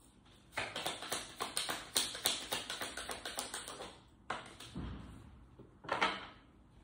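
A deck of tarot cards being shuffled by hand: a quick patter of card edges flicking and slapping together for about three seconds, then two louder single knocks of the deck near the end.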